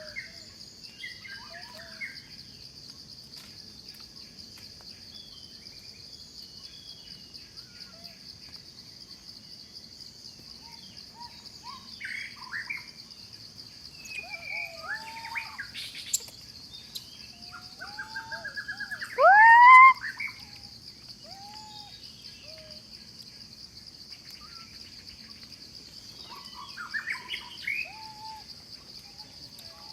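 Forest ambience: a steady high-pitched insect drone with scattered bird calls and chirps, and one loud rising call about two-thirds of the way through.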